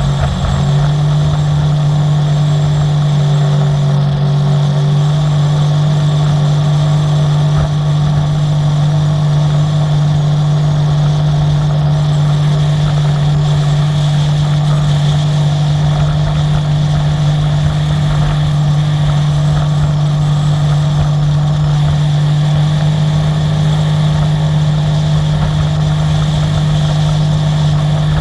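Sea-Doo personal watercraft engine running steadily at cruising speed, a loud constant drone that steps up slightly in pitch about half a second in and then holds.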